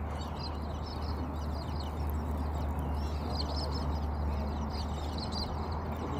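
Birds calling over and over in short, high, chattering calls, over a steady low rumble.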